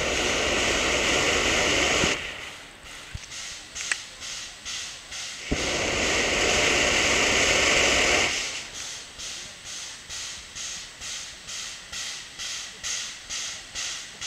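Steam locomotive venting steam low at the front in two long hisses of about two and three seconds, the cylinder cocks blowing the water out as it starts. Then it settles into steady chuffing, about two exhaust beats a second, as it pulls its train away.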